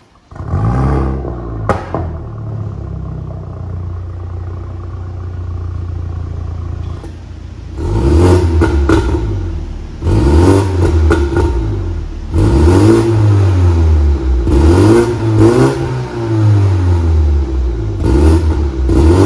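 Toyota Supra's B48 2.0-litre turbocharged four-cylinder starting through a Fi valvetronic exhaust with catless downpipe, flaring up as it catches with one sharp crack just after, then settling to a steady idle. From about 8 seconds in it is revved in a string of quick blips, about five, each rising and falling in pitch.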